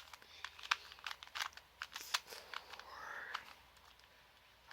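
Plastic 2x2 Rubik's cube being turned quickly by hand: a run of sharp, irregular clicks and clacks from the layers turning, thinning out near the end.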